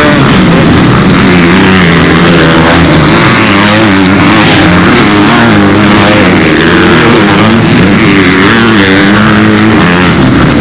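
Several motocross dirt bike engines racing together. They are loud, rising and falling in pitch as the riders blip the throttle through the turns.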